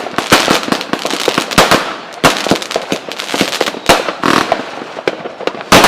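Fireworks going off: a rapid, irregular string of sharp bangs and crackles, several a second, with a very loud bang near the end.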